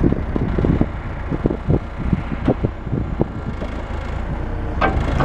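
Kobelco 80CS excavator's diesel engine running steadily while the arm and bucket move, with wind buffeting the microphone. A brief higher-pitched sound comes near the end.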